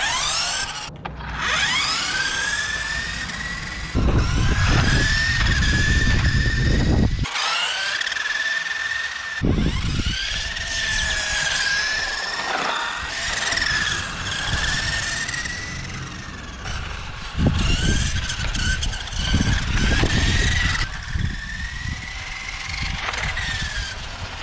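Small electric motors of toy-grade radio-controlled cars whining, the pitch rising and falling as the cars speed up and slow down. A low rumble comes and goes in stretches, and the sound changes abruptly a few times.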